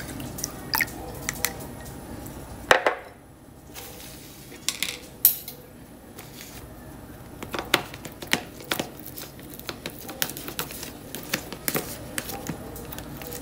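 Spoon clicking and scraping against dishes in irregular knocks: first a plastic spoon stirring milk in a glass bowl, then a metal spoon mashing soft boiled pumpkin and liver in a plastic tub.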